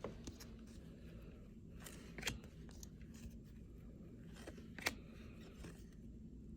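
A few short crinkles and clicks of trading cards and pack wrappers being handled, the loudest near the end, over a steady low hum.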